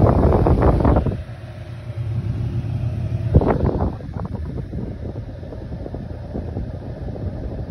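Air blowing from an air cooler buffeting the phone's microphone as a low rumbling wind noise, loud for the first second and then quieter, with a faint steady hum for a couple of seconds and a single thump about three and a half seconds in.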